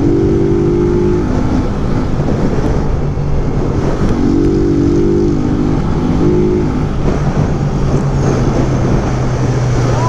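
Motorcycle engine running at highway speed, with wind noise on the microphone. A second, higher engine note comes in twice, at the start and again about four seconds in.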